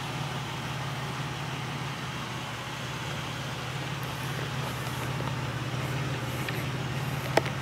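2000 Buick Century's 3.1-litre (3100) V6 idling steadily, with one brief click near the end.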